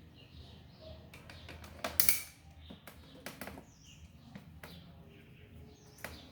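Scattered sharp clicks and taps, as of small hard objects being handled and set down, the loudest a quick cluster about two seconds in and another just after six seconds. Birds chirp faintly over a steady low hum.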